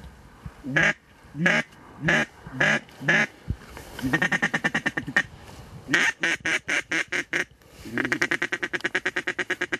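Duck call blown in mallard-style quacks: five spaced loud quacks, then three fast runs of short quacks.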